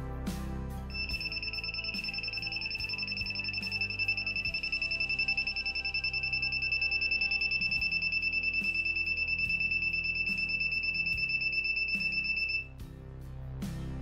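Piezo buzzer of a homemade 555-timer thermistor fire alarm sounding a steady high-pitched tone, set off by a flame heating the thermistor; it starts about a second in and cuts off suddenly near the end. Background music plays underneath.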